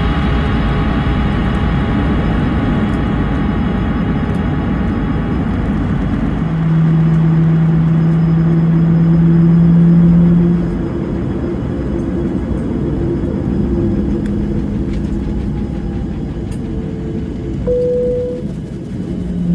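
Steady cabin rumble of a Boeing 737-700 taxiing, its CFM56 engines at low power, with a low steady hum that swells for a few seconds near the middle. Background music fades out over the first few seconds.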